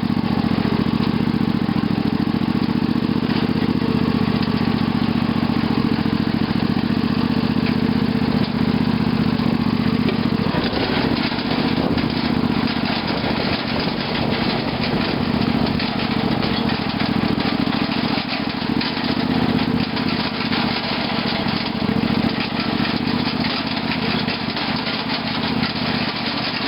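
Lawn tractor's 18.5 hp Briggs & Stratton Intek engine running steadily while driving. About ten seconds in its note turns less even, with more rattle and hiss.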